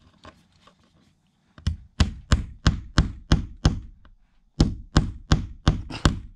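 Hammer blows on the underside of the wooden roof deck, driving a nail up through it to mark the chimney pipe's centre for the roof side. Two runs of quick, even strikes, about three a second, starting about a second and a half in, with a short pause in the middle.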